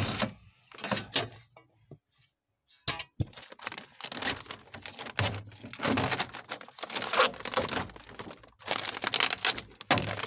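Plastic trim being pried and pulled off the inside of a car door: a few sharp clicks and knocks, then, from about three seconds in, steady crackling and rustling of plastic with louder bursts.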